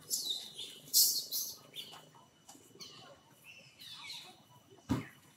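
Macaques giving shrill, high-pitched squeals and screeches in bursts, the loudest about a second in, with more calls a few seconds later. A single thump near the end.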